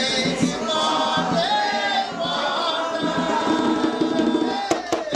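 Voices singing a call-and-response ceremonial chant (an Umbanda ponto for the Boiadeiro) with drums, and a few sharp strikes near the end.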